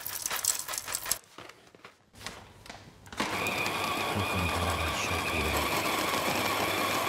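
Coffee beans rattling as they pour from a paper bag into a grinder's hopper for about a second. About three seconds in, an electric coffee grinder starts and runs steadily with a whine, grinding the beans.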